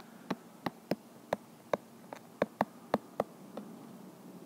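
Stylus tip tapping on an iPad's glass screen while a word is handwritten: about ten short, sharp taps at an uneven pace.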